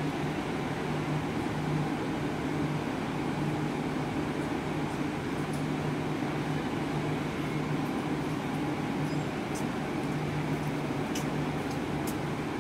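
Steady hum of a KRL commuter electric train standing at the platform, its roof air-conditioning and auxiliary equipment running with a low held tone. A few faint ticks come near the end.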